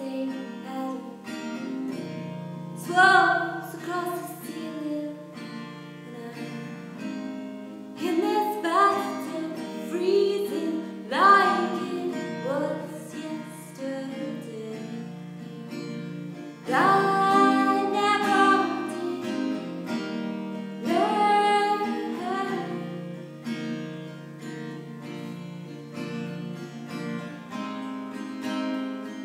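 A woman singing to her own strummed acoustic guitar. Sung phrases come and go over the steady chords, and in the last several seconds the guitar plays alone.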